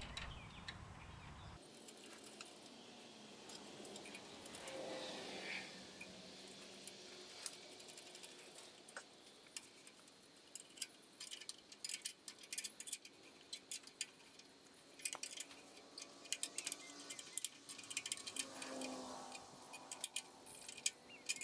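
Faint, quick metallic clinks and ticks of nuts, washers and tools as an exhaust clamp is fitted to a small tractor's exhaust pipe, sped up fourfold. Sparse at first, then many rapid clicks in the second half.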